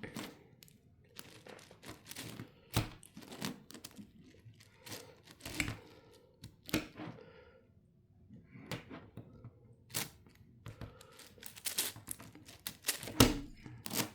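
Plastic clicking and clacking of a 10x10 Rubik's cube as its layers are turned, in irregular runs of quick turns, with a pause of about a second past the middle and a louder clack near the end.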